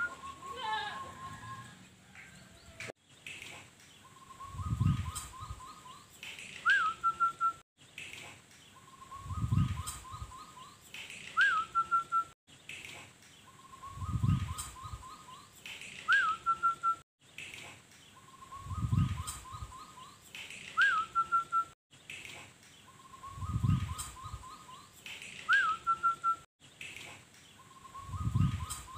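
Zebra dove (perkutut) singing its cooing song phrase, about six times. Each phrase has a low opening coo, a quick run of short stuttering notes, and a higher clear note that rises and falls. The phrases come back identically about every four to five seconds.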